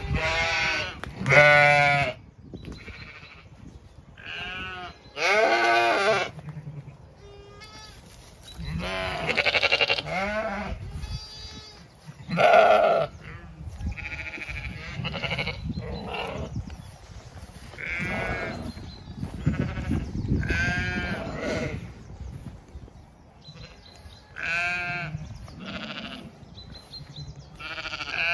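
Zwartbles sheep, ewes and lambs, bleating over and over: more than a dozen wavering calls, each about a second long, one after another, some higher and thinner than others.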